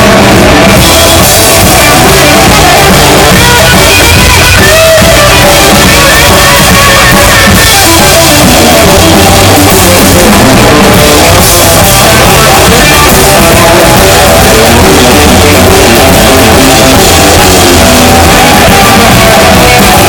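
Live rock band playing very loud: electric guitar, bass guitar and drum kit, with the recording overloaded and flat at full scale.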